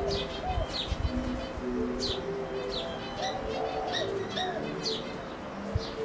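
Doves cooing, with another bird's short, sharp falling chirps repeating about once a second over them. A few low thumps come in the first second.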